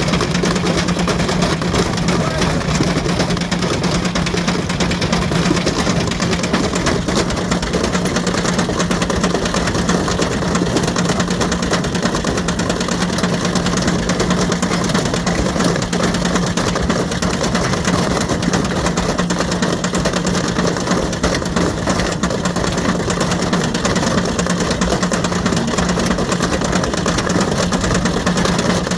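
Ariston Margherita washing machine running loaded with a brick: a steady, loud machine hum with continuous rattling and knocking from the brick in the drum.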